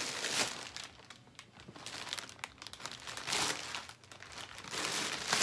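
Plastic shopping bag crinkling as it is handled and held up, in several rustling bursts.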